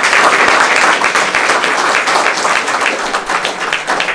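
Audience applauding: dense clapping from many hands, easing off slightly toward the end.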